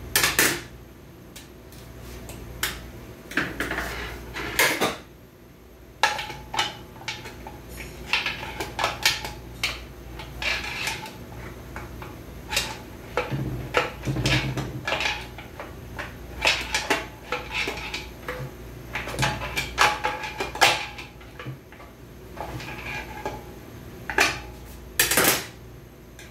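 Metal parts and tools of a Lexus LS 460 8-speed automatic transmission clinking and clanking irregularly as the transmission is taken apart by hand.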